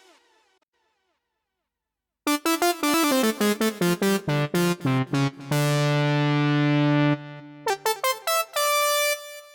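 Synthesizer keyboard workstation playing a demo phrase, after about two seconds of silence. It plays quick, clipped keyboard notes, holds a chord for under two seconds, then plays more short notes.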